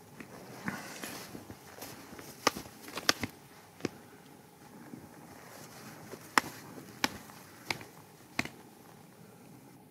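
Hiker climbing on foot through deep snow with trekking poles: soft steps in the snow and a series of sharp clicks from the poles, a cluster of them a few seconds in and then a more regular run of four near the end.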